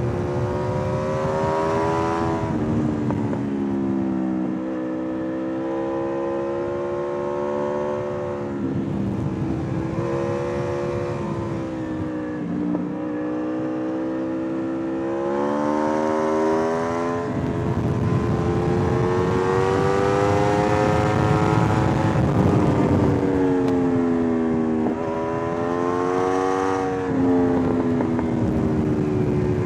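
Aprilia RSV4 R's V4 engine on the move, its pitch rising and falling as the throttle is opened and closed through a series of bends, with several drops in pitch from shifts and deceleration, over a rush of wind and road noise.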